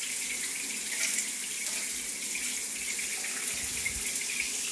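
Water running steadily in a tiled shower stall, rinsing shed hair off the floor toward the drain.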